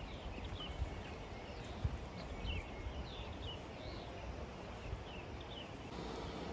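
A few dull footsteps on a dirt and grass trail, mostly in the first two seconds, with short high chirps of birds repeating throughout over a steady outdoor hiss.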